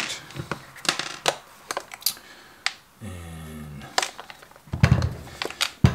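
Plastic clicks and taps from the glass-fibre-reinforced nylon clamshell housing of an Einhell 18V cordless reciprocating saw being worked apart by hand after its screws were taken out, with a sharper knock near the end.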